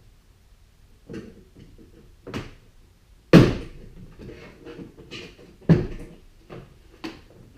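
Plastic door-panel retaining clips snapping loose as a trim removal tool pries the rear door trim panel off the door. Two loud pops about a third and two thirds of the way through, with a few lighter knocks and plastic rattling between them.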